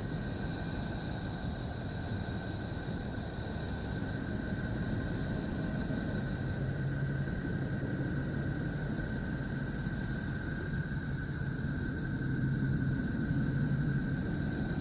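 A steady, low rumbling space-sound drone with two faint steady high tones above it, as played in 'sounds of the planets' sonifications. It swells slightly toward the end and cuts off suddenly.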